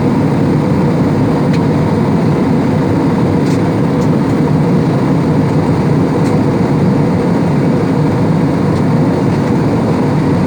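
Steady drone of jet engines and rushing air heard inside an airliner cabin in flight.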